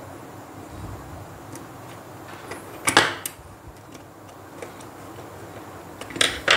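A screwdriver tightening a brass terminal screw on a plastic two-way switch to clamp a wire: light ticks and scrapes of metal on metal and plastic, with a sharper cluster of clicks about three seconds in and another near the end.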